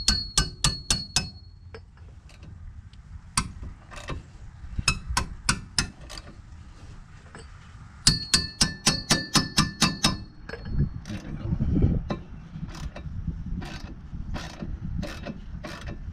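Hammer blows on the steel rear brake and hub assembly of a 2015 Ford Escape, to free a stuck part. They come in quick runs of several strikes, most of them ringing like metal, and the later blows are duller.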